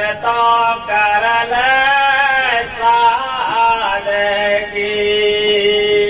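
A man singing a Hindi devotional bhajan in long drawn-out vowels, the melody sliding between held notes, with a long steady note near the end.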